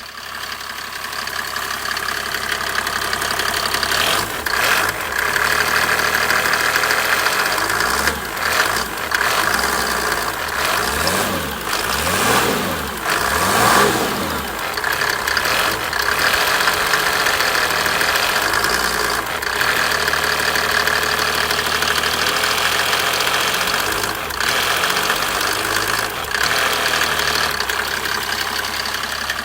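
Mercedes-Benz OM603 turbodiesel inline-six running with a knocking sound. It is revved up and down several times around the middle.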